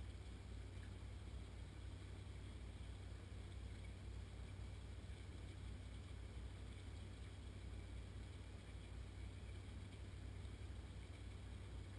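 Faint, steady background noise: a low rumble with a light hiss and no distinct events.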